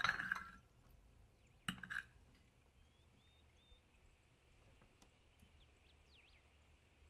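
Two clinks of tableware, one at the start and another just under two seconds in, then faint bird chirps over quiet room tone.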